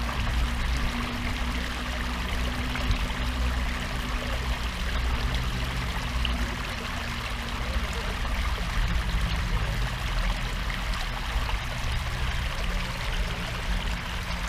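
Water gushing steadily into a concrete channel from an inlet, churning and splashing.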